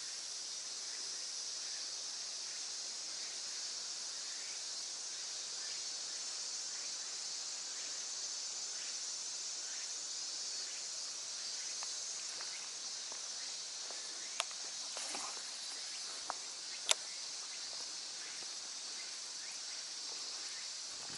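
A steady, high-pitched chorus of summer insects, broken by three sharp clicks about two-thirds of the way through.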